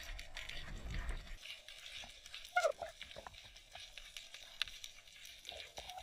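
Muffled underwater sound picked up through a GoPro's housing: scattered small clicks and crackles, a low rumble in the first second or so, and a brief squeaky glide about two and a half seconds in.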